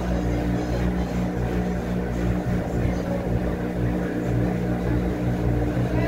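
Top-loading washing machine with a central agitator running, its motor humming steadily as the tub turns the load of laundry.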